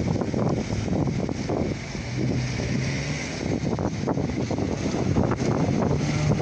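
Blizzard wind gusting and buffeting against the microphone, with a low steady hum that comes and goes.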